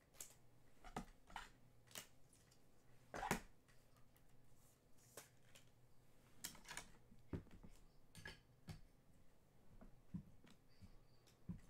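Faint, scattered clicks and soft taps of trading cards and a clear plastic card holder being handled, the strongest about three seconds in.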